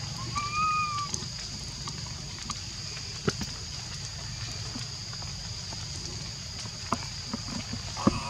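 A single short, clear coo call from a baby macaque about half a second in, rising and then levelling off, over a steady high insect drone; a few sharp clicks follow later.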